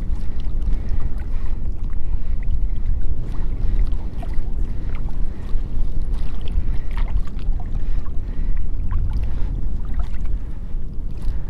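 Wind buffeting the microphone in a steady low rumble, with faint small splashes and ticks of water scattered through it.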